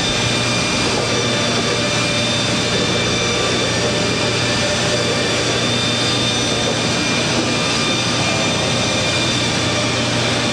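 Motor-driven polishing and buffing wheels running steadily in a gun shop's polishing room: a constant rushing noise with several steady whining tones and no let-up.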